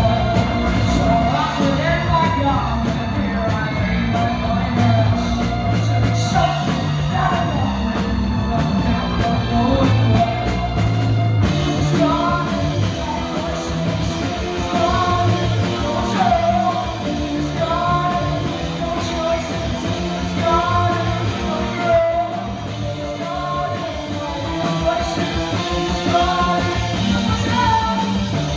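Live band playing a loud song, with a singer's voice over the instruments.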